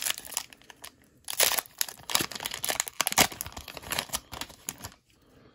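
Foil wrappers of Pokémon trading-card booster packs crinkling as the packs and cards are handled, in a run of irregular crackles that stops about five seconds in.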